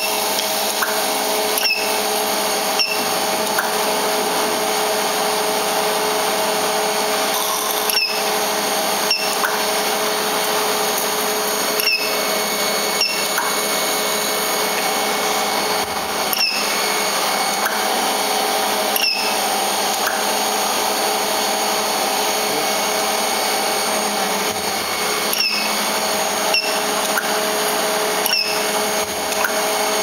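Induction brazing heater running steadily: a constant electrical hum and whine with several steady tones, broken now and then by very brief cut-outs with a small chirp, while it heats the copper pipe joint inside its coil.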